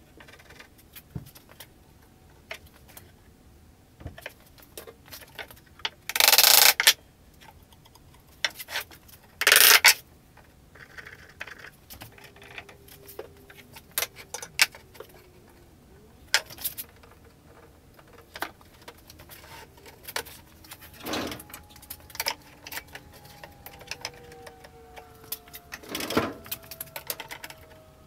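Workbench handling sounds of a frame being glued up and fitted with metal bar clamps: scattered knocks and metallic clinks, with two short, loud rasping noises about six and a half and nine and a half seconds in. In the second half come faint drawn-out squeaks that slowly fall in pitch.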